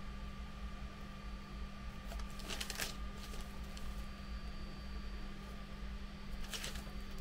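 Hands handling plastic model-kit parts and a glue bottle on a newspaper-covered workbench: two short bursts of rustling and light plastic clicks, about two and a half seconds in and near the end, over a steady low electrical hum.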